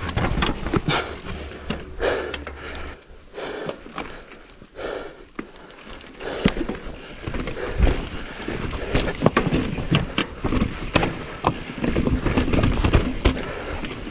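Mountain bike riding down a rough, rocky trail: a dense, irregular run of knocks, clatters and rattles as the tyres, chain and frame hit rocks, over a steady noise of rolling and riding.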